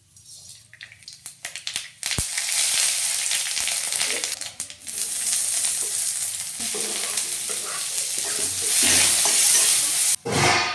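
Food frying in hot oil in a pan while it is stirred. A few light clicks come first, then a loud sizzle starts suddenly about two seconds in and keeps going.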